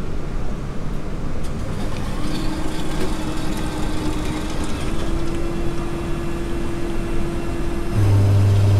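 Fresh-beans-to-cup coffee vending machine working on a hot drink: a steady hum comes in about two seconds in and shifts slightly higher a few seconds later, then a louder, deeper hum starts near the end.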